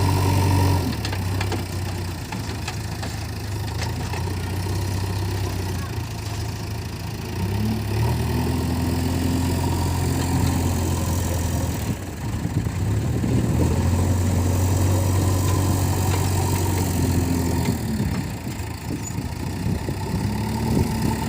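Diesel engine of a JCB 3DX backhoe loader running, swelling louder and higher for spells of a few seconds and dropping back between them as it works under load.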